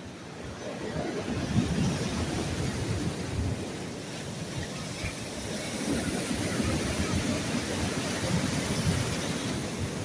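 Sea waves washing onto the shore in two surges, one about a second in and another about six seconds in, with a low rumble of wind buffeting the microphone.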